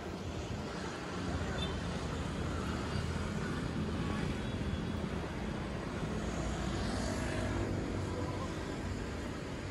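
Road traffic on a city street: passing car engines and tyres as a steady rumble, swelling about a second in and easing near the end.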